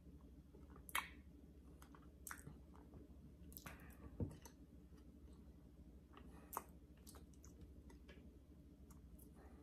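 Faint sounds of a man eating pulled pork roast with his fingers: soft chewing with a few sharp mouth and finger clicks spaced a second or two apart, and one slightly longer rustle with a thud about four seconds in. A low steady hum runs underneath.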